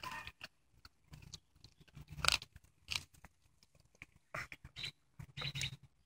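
Irregular crunching and gnawing clicks of an animal chewing on a meaty bone, with the loudest crunch about two seconds in.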